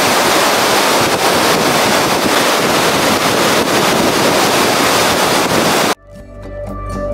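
Large mountain waterfall, a dense steady rush of falling water. About six seconds in it cuts off abruptly and soft music with sustained notes fades in.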